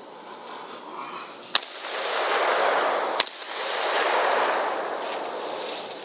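Two rifle shots fired at feral hogs in a trap, about a second and a half apart, each followed by a noisy rush of sound lasting a second or so.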